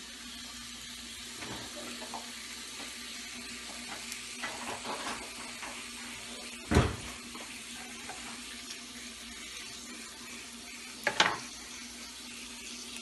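Beef burger patties and chopped peppers and onion sizzling steadily in an oiled grill pan over medium heat. A loud knock sounds about halfway through and a sharper clack near the end.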